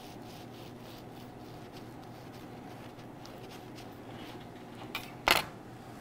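Serrated bread knife sawing through a loaf of soft bread with a baked crust, a faint rasping with each back-and-forth stroke. Just after five seconds in, a sharp knock as the knife is set down on the wooden board.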